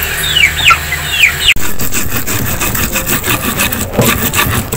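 A chicken peeping in short, high chirps that fall in pitch, then, after about a second and a half, a stone pestle grinding spice paste in a stone mortar (cobek) with a fast, continuous scraping rub.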